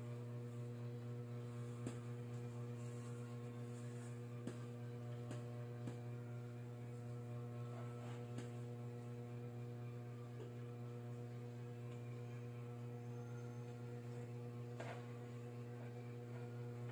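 Steady low electrical hum with a few faint scattered clicks.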